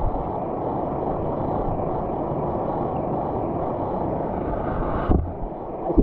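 Flowing stream water heard through an underwater camera: a steady, muffled, low rush, with a single knock about five seconds in.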